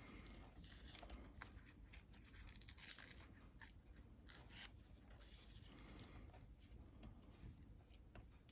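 Faint rustling and a few short, soft rips of thin old book paper being torn by hand, thickest about three seconds in.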